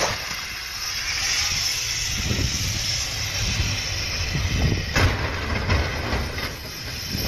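Wind rushing and buffeting the microphone amid vehicle noise on a snowbound highway pileup, with a sharp crash about five seconds in as a vehicle slams into the wreckage.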